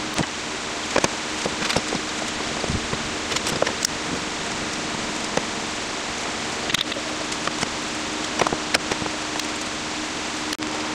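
Scattered light clicks and knocks as the oak chair frame and pipe clamps are handled and set, over a steady even hiss with a faint hum.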